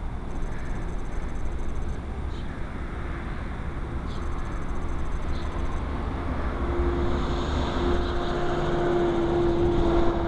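Steady low rumble of vehicle noise, with a droning hum coming in about two-thirds of the way through and growing louder toward the end.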